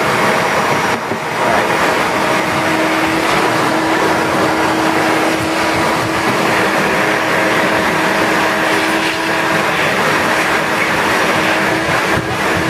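Vacuum cleaner running steadily, a constant motor whine over rushing suction noise, its nozzle worked back and forth over car floor carpet.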